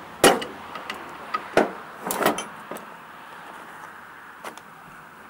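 Hand tools knocking and clanking against metal mower parts: a handful of sharp, irregular knocks, the loudest about a quarter second in and a quick cluster around two seconds in.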